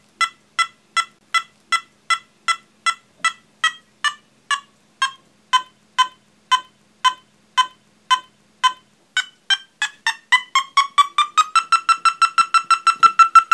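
PediGuard pedicle probe's audio feedback: a series of electronic beeps whose pitch and cadence follow the electrical conductivity at its tip. It beeps about three times a second for cancellous bone, then slows to about two a second and drops in pitch as the tip meets lower-conductivity cortical bone, warning of a coming breach. From about nine seconds in, the beeps quicken and rise into a fast high run, the signal of a breach into blood.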